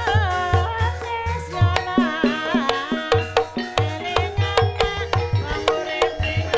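Banyumasan gamelan music for an ebeg horse dance: hand-drum (kendang) strokes in a busy rhythm over held metallophone tones, with a wavering melodic line above.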